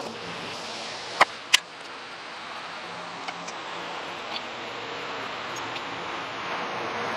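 Broom sweeping sawdust and wood chips across a concrete shop floor. Two sharp clacks, a third of a second apart, come about a second in, with a few lighter ticks later.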